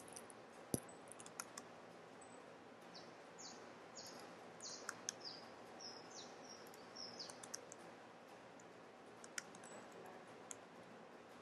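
Faint computer keyboard typing and mouse clicks, with a bird chirping in the background: a run of short, high, falling chirps from about three seconds in until past the middle.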